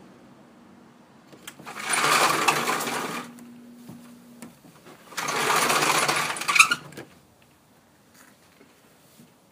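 A sliding glass patio door rolling open on its track with a rattling rumble, then a few seconds later rolling shut again, ending with a knock against the frame.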